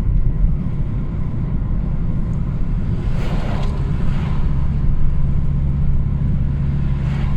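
Car driving, heard from inside the cabin: a steady low rumble of engine and road noise, with a brief rush of noise about three seconds in.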